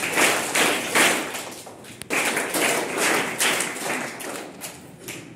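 Audience of schoolchildren applauding: a dense patter of many hands clapping that swells and ebbs, then dies away near the end.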